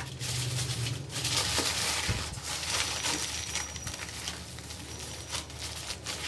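Aluminium foil crinkling and crackling as it is folded and pressed around a metal cake ring, in uneven bursts of rustle.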